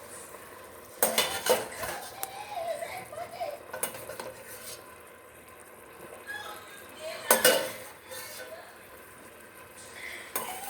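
A big spoon clanking and scraping in a frying pan as cooked shrimp are scooped out, with butter sizzling faintly underneath. Loud clatter comes about a second in and again just past seven seconds.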